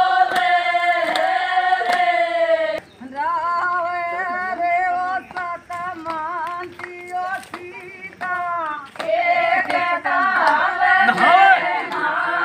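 A group of women singing a folk song together, with a steady beat in the first couple of seconds. About three seconds in a single woman's voice carries the song alone, and the group joins in again near the end.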